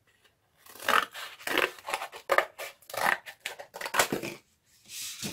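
Scissors cutting corrugated cardboard: a run of five or six crisp snipping and scraping strokes over about three seconds, then a softer rustle of cardboard near the end.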